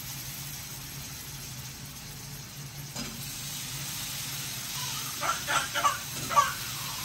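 Chopped ripe pumpkin sizzling gently in hot oil and spice paste in a kadhai. A few short, louder sounds come about five to six and a half seconds in.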